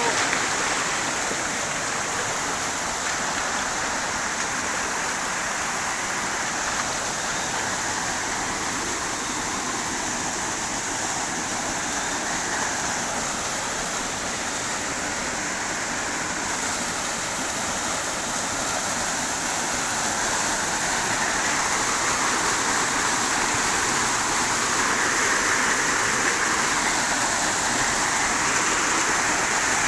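Shallow rocky stream rushing over stones, a steady rush of water that grows a little louder about two-thirds of the way through.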